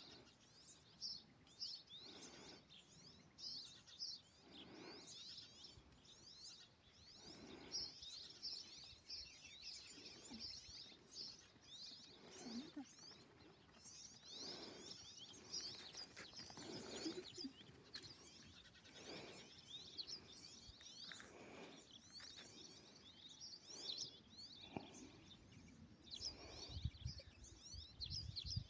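Faint chorus of small birds chirping and trilling continuously, with a separate lower sound recurring about every two to three seconds.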